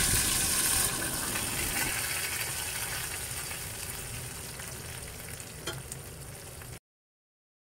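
Hot oil tempering (chhaunk) of cumin seeds, curry leaves and whole dried red chillies sizzling on the surface of kadhi just after being poured on. The sizzle dies away steadily and then stops abruptly near the end.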